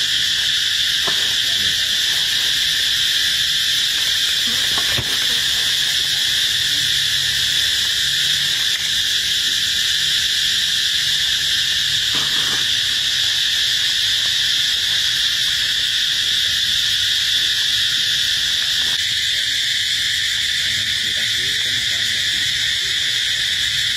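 Steady, high-pitched insect chorus droning without a break, with a few faint soft clicks.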